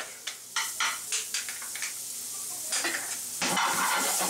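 Minced garlic sizzling in a hot frying pan while it is stirred, the utensil scraping the pan in short strokes. The sizzle grows louder about three and a half seconds in.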